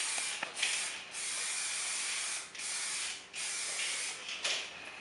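Aerosol spray-paint can hissing in about six bursts, the longest over a second, with short breaks between, as letters are sprayed onto a wall.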